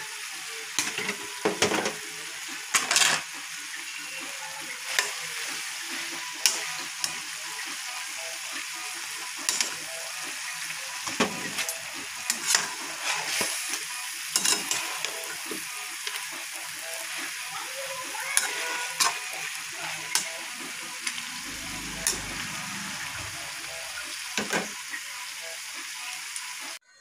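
Food sizzling in a metal wok, with a slotted spoon stirring and scraping against the pan in irregular clinks and knocks; vegetables are tipped into the pan near the start.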